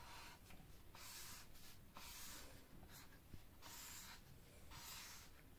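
Felt-tip whiteboard marker drawing on a whiteboard: a faint scratchy hiss with each stroke, in a quick series of short up-and-down strokes.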